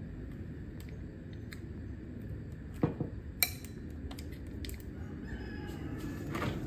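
Two sharp clicks a little over half a second apart about three seconds in, over a steady low hum. Near the end there is a faint, drawn-out call in the background.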